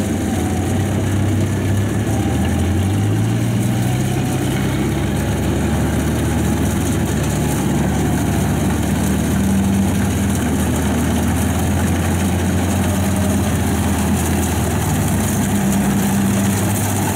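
Kubota rice combine harvester's diesel engine running steadily as the machine cuts rice, its pitch rising a little about two to three seconds in.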